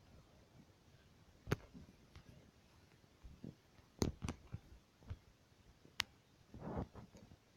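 Faint, scattered clicks and taps, a few seconds apart, with a brief soft rustle near the end.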